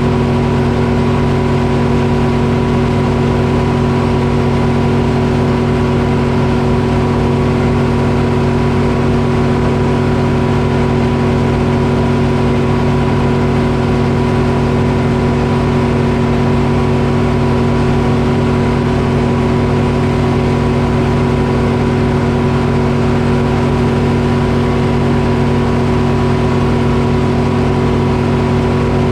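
Detroit Diesel engine powering a Frick sawmill, running at a steady speed with a constant, even drone.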